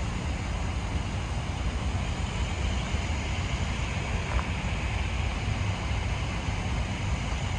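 Steady outdoor background noise: a fluctuating low rumble with hiss, typical of wind buffeting the microphone.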